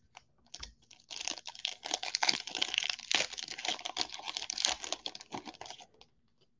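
Hockey card pack being opened and its cards handled: a dense run of crinkling and clicking lasting about five seconds.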